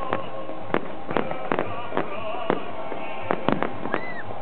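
Fireworks display: aerial shells bursting overhead in quick, irregular succession, about a dozen sharp bangs.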